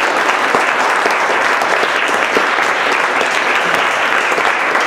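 Audience applauding: many people clapping together, a dense, steady round of applause.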